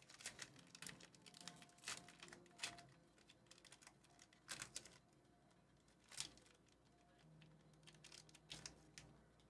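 Foil wrapper of a Fleer Ultra Wolverine trading-card pack crinkling and tearing as it is opened by hand: a string of faint, sharp crackles and rustles, with a last few near the end.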